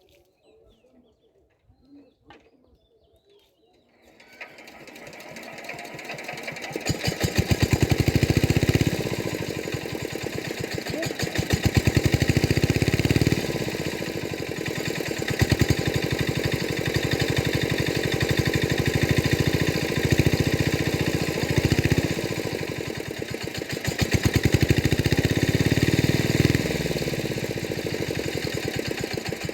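A small engine starts up about four seconds in and runs loudly to the end, its speed rising and falling every few seconds.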